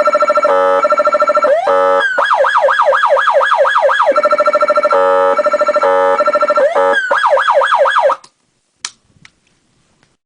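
Federal Signal Touchmaster Delta electronic siren in sweep mode, cycling through its tones: fast up-and-down yelping sweeps, a steady horn-like tone, and a rapid pulsing warble, in a repeating sequence. It cuts off suddenly about eight seconds in, followed by a couple of faint clicks.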